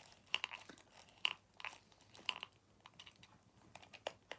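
Plastic sideways correction tape roller pressed and drawn across a paper card, making irregular small clicks and scrapes. The repaired roller has too little friction to feed its tape properly.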